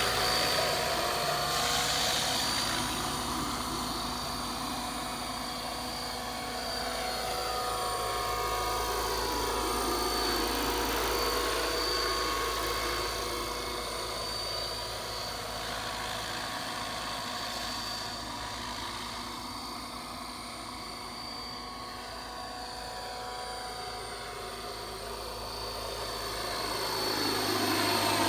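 Scale RC model helicopter on a 600-size airframe flying, with a continuous high whine and the noise of its rotors. The sound grows louder and softer several times, and its pitch glides up and down as the model moves about.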